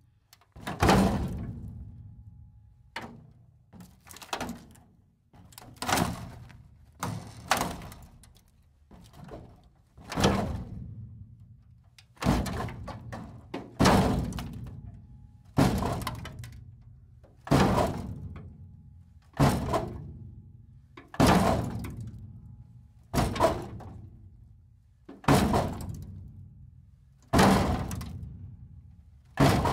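A series of heavy impacts, one about every two seconds and sometimes two in quick succession, each trailing off in a short echoing decay.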